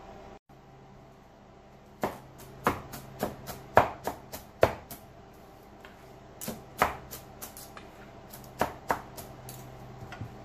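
Kitchen knife chopping cabbage on a wooden cutting board: sharp, irregular chops in quick runs, starting about two seconds in, with a short pause midway.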